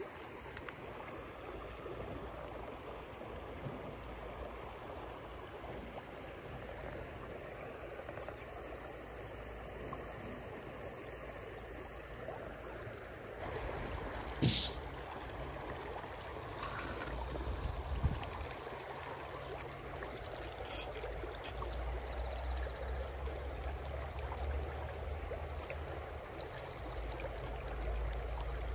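Shallow river current running over stones and riffles, a steady babbling wash, with a single sharp click about halfway through and a low rumble building near the end.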